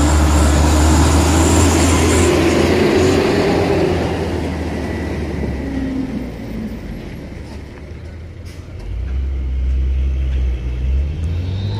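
Diesel engine of a Mitsubishi Canter light truck pulling through deep mud ruts, a loud low drone with tyre and mud noise that fades out about six seconds in. Another vehicle engine drone rises again around nine seconds in.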